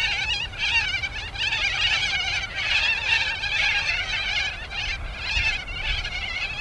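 A large flock of birds calling together: a dense, continuous chorus of overlapping, wavering high calls.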